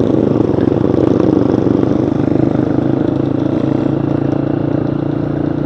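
Yamaha Scorpio 225's single-cylinder four-stroke engine running at a steady cruise under way, its pitch holding nearly constant.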